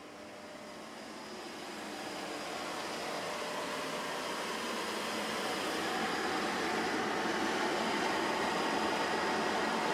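Running pool equipment, the circulation pump and a Sta-Rite Max-E-Therm 400 gas pool heater firing, giving a steady mechanical whir that grows steadily louder as it is approached.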